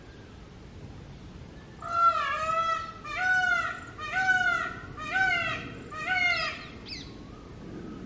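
Rose-ringed parakeet calling: a run of five loud, drawn-out calls about a second apart, each rising then falling in pitch, starting about two seconds in and followed by a short high note.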